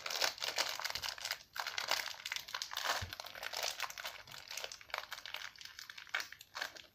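Small plastic Haribo candy sachet crinkling steadily as it is pulled and twisted by hand and bitten at, in a struggle to tear it open; the wrapper does not give.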